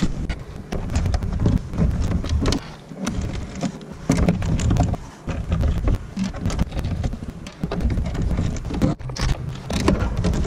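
A gusty low rumble of wind on the microphone, with many scattered clicks and knocks as the carbon-fibre air filter box and its intake hose are handled and worked loose.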